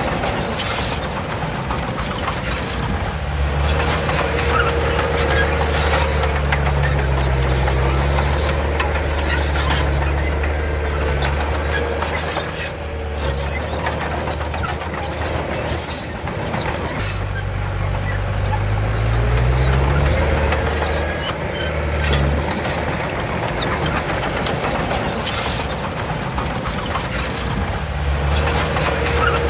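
Komatsu D31 bulldozer working, its diesel engine running under changing load, easing off and then climbing in pitch about two-thirds of the way through. A thin steady tone comes and goes above the engine.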